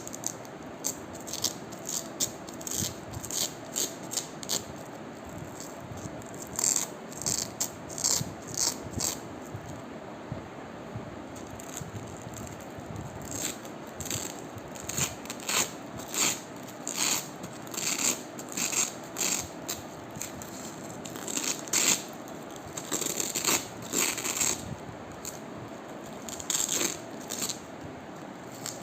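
Crunchy ASMR noises: many short, sharp crunches and crackles in irregular clusters, several a second, with brief pauses between runs.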